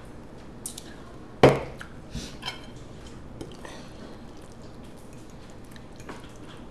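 A sharp knock about a second and a half in as a stemmed glass holding ice and drink is set down on a wooden table, followed by a few lighter clinks of glass and cutlery.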